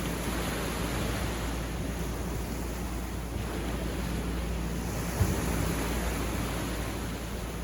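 Sea waves breaking and washing up a beach in a continuous surf, swelling and easing. There is a brief low thump about five seconds in.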